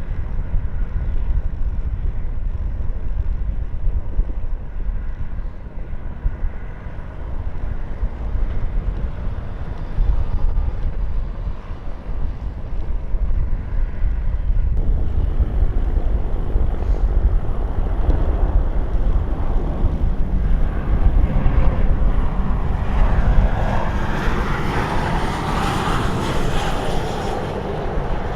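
Strong wind buffeting the microphone throughout. A jet aircraft's engine noise builds from about halfway and is loudest near the end.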